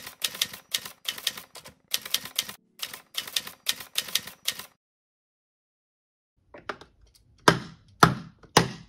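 Typewriter sound effect, keys clacking rapidly in quick runs for about four and a half seconds. After a pause, three louder knocks near the end as plastic building bricks are handled.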